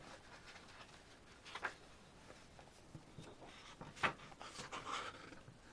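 Faint handling of a CD album's paper booklet: soft page rustles, with brief swishes about one and a half seconds in and again about four seconds in.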